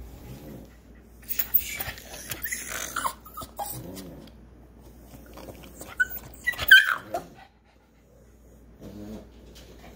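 Boston terrier whining and grumbling in short bursts, with one loud high yelp about seven seconds in. She is impatient for her ball to be thrown again.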